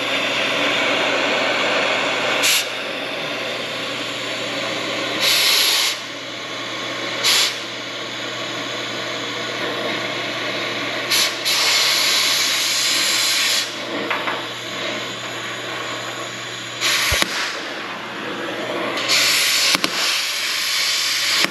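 Cutting torch hissing steadily as it cuts the head off a seized leaf-spring bolt, with louder surges of hiss every few seconds.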